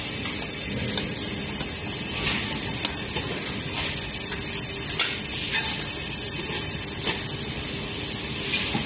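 Steady hiss of factory noise, with a few sharp metallic clicks and knocks as a steel pipe is set into a welding fixture and its toggle clamps are worked.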